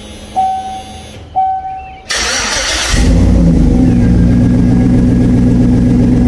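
Two short beeps, a brief rushing burst, then a car engine starting and running steadily and loudly.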